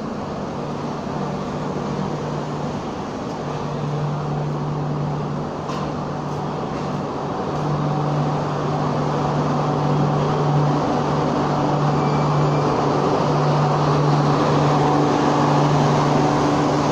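Air-conditioned LHB passenger coaches rolling slowly past as the train pulls out, a steady rumble of wheels on rail with a steady low hum. It grows gradually louder toward the end as the louvred power car with its diesel generators draws near.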